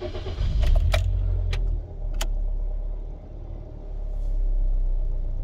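Toyota Corolla engine started with the key: a few clicks of the key, the engine cranks and catches, then settles into a steady idle that swells slightly about four seconds in. This is the first run after an oil change, which sends the fresh oil round the engine and into the new filter.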